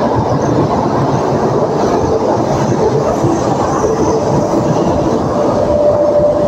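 WAG-9HC electric locomotive rolling along the track: a steady rumble of steel wheels on the rails.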